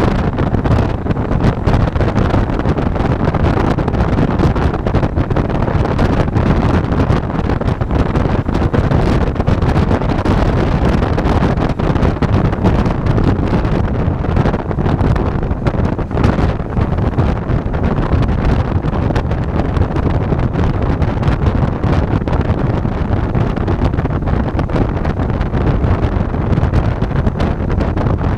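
Bajaj Dominar 400 motorcycle riding, its single-cylinder engine running under steady wind rush on the action camera's microphone.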